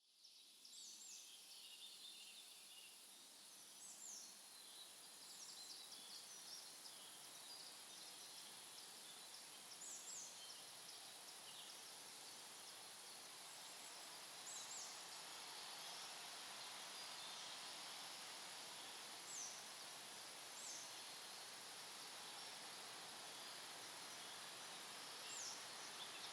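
Faint outdoor field ambience: a soft steady rustle of wind, with short high-pitched bird chirps every few seconds and a thin, steady high hiss.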